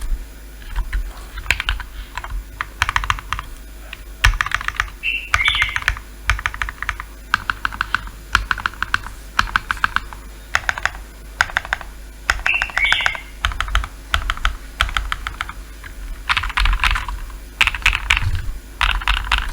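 Typing on a mechanical keyboard fitted with factory-lubed First Love linear switches (PC top, POM bottom housing). The keystrokes come in quick runs of a second or so with short pauses between them.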